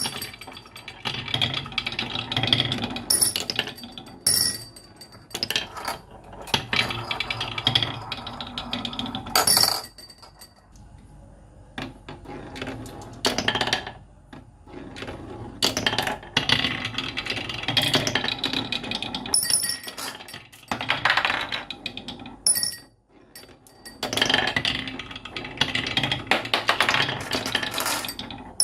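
Marbles rolling and clattering down a wooden marble run, with many sharp clicks and knocks as they drop, hit the track and each other. The rolling comes in waves, with a quieter stretch about a third of the way in.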